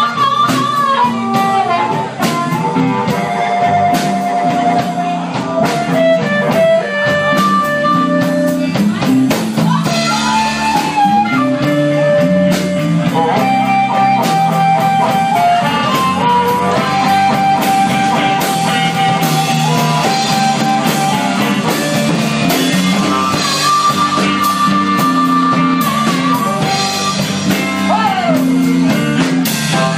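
Live blues band playing: a harmonica holds long notes, some bent or sliding, over electric guitar and a drum kit.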